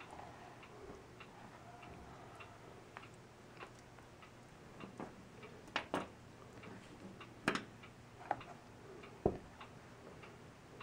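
A clock ticks faintly and steadily, about one tick every two-thirds of a second. Over it come several sharper clicks and knocks between about five and nine seconds in, from a sterling silver bead necklace and its velvet display bust being handled as the necklace is laid out on a cloth-covered counter.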